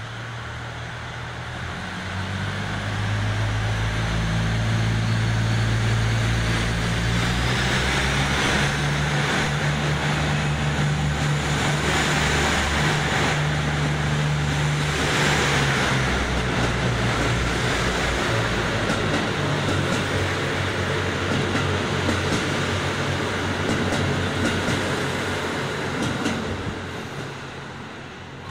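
KiHa 85 series diesel multiple unit accelerating away from a station platform: its Cummins diesel engines rev up, the engine note climbing in steps, with the rush and rumble of the cars passing close by. The sound fades near the end as the train moves off.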